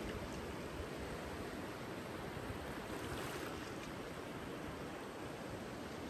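Steady hiss of ocean surf, with wind buffeting the microphone in an uneven low rumble.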